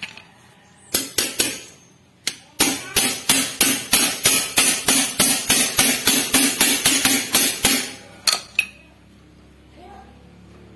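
Hammer striking metal: a few separate blows, then a quick even series of about four blows a second for some five seconds, each with a short metallic ring, and two last blows.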